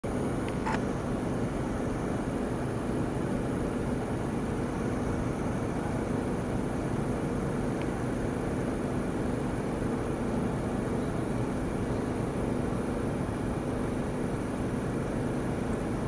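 Steady low mechanical drone with a constant hum, the kind of background rumble given by traffic or machinery. A brief faint high sound comes near the start and again about eight seconds in.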